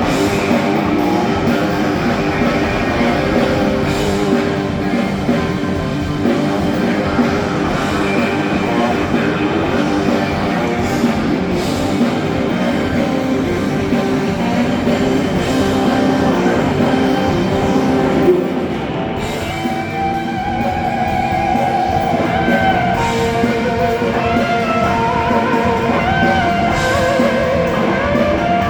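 Rock band playing live over a PA during a soundcheck, electric guitar prominent over the band. A little past halfway the sound thins and a guitar plays bending lead lines.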